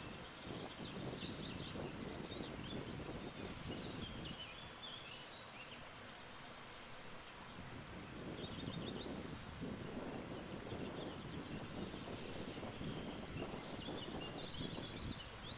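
Wind gusting across the microphone with small birds chirping and twittering throughout. The wind eases for a few seconds in the middle, then picks up again.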